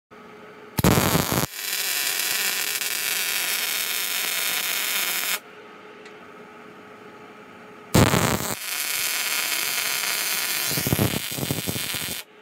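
Arc welding steel: the welding arc crackles and hisses as a bead is laid joining the truss plate to the axle tube. There are two runs of about four seconds each, with a short pause between them, and each begins with a loud burst as the arc strikes.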